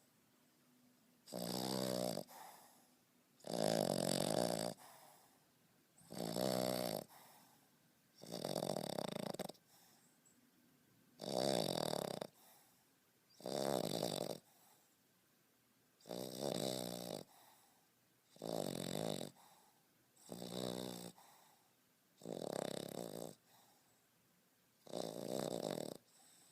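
French bulldog puppy snoring in its sleep: a steady rhythm of about eleven loud, rattling snores, each about a second long, coming every two to two and a half seconds.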